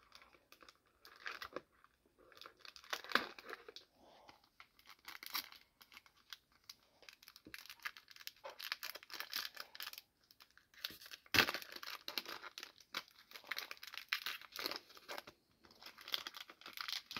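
Foil-lined plastic wrapper of a Donruss football card pack being torn open and crinkled by hand, in irregular crackles with a sharp, loud crackle about eleven seconds in.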